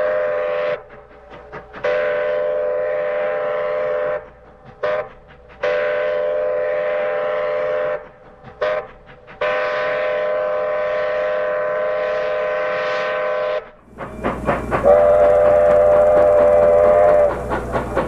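Steam locomotive chime whistle, offered as the possible original whistle of Grand Trunk Western #4070. It sounds a series of long blasts with two short toots between them, the last blast held about four seconds. Near the end another recording of a steam whistle plays over the steady rumble and hiss of a moving train.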